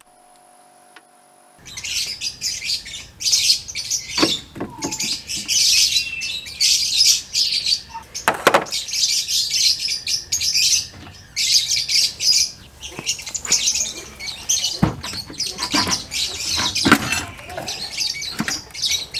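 Birds chirping busily and continuously, a high twittering chatter that starts a moment in. A few sharp knocks are heard over it.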